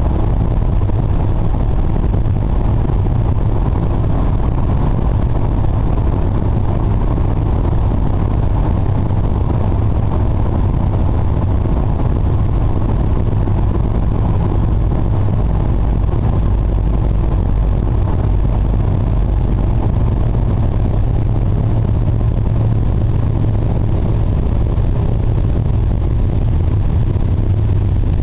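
Steady low rumble of a vehicle's engine and tyres on the road, heard from inside the cabin while driving.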